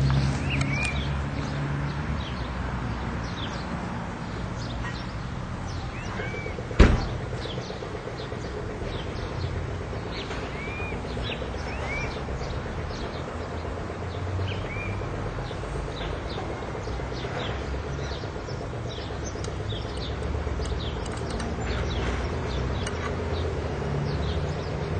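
Small birds chirping again and again with short, quick calls, over a steady low rumble. One sharp knock stands out about seven seconds in.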